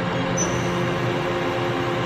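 Mori Seiki NV5000 CNC vertical machining center running under power: a steady machine hum with a brief high tone about half a second in.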